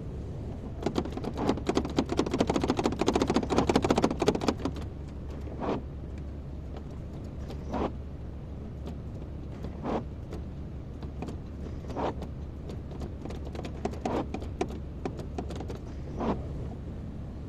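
Kobelco excavator's engine running steadily with a low hum. A few seconds of dense crackling and rattling near the start, then a single sharp click about every two seconds.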